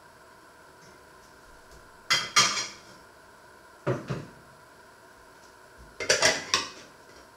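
Ceramic plates clinking and clattering against each other as they are handled, in three short bursts about two seconds apart.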